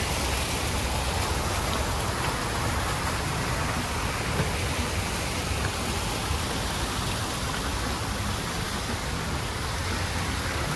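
Fountain water falling and splashing, a steady rushing.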